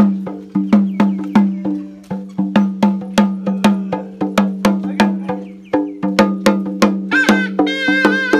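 Karbi cheng drum played in a steady, fast rhythm, each stroke with a pitched ring. About seven seconds in, a muri pipe joins on a long, held high note.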